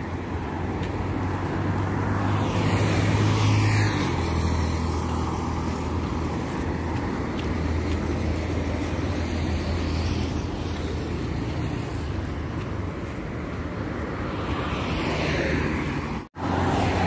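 Road traffic on a multi-lane road: a steady rumble of engines and tyres, with cars swelling past about three seconds in and again near the end. The sound cuts out briefly just before the end.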